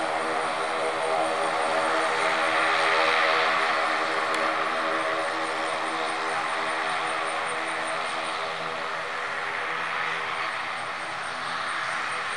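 Turboprop engines and propellers of an ATR 72 airliner running as it moves along the runway: a steady drone of even propeller tones under a rushing hiss that swells about three seconds in.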